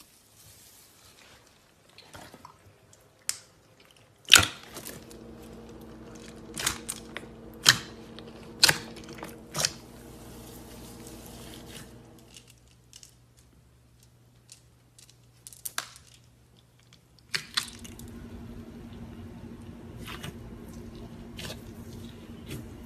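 Clear slime being squished and pressed by hand, giving irregular sharp wet pops and clicks, the loudest about four seconds in. A steady low hum sits underneath for much of the time and drops out for a few seconds in the middle.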